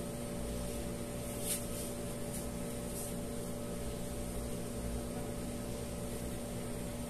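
Steady electrical room hum, with brief faint rustles of fabric being handled about one and a half and three seconds in.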